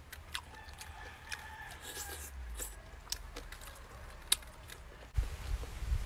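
Close-up eating sounds: chewing with scattered sharp clicks and lip smacks as fingers pick at food from a coconut-shell bowl. A low rumble comes in about five seconds in.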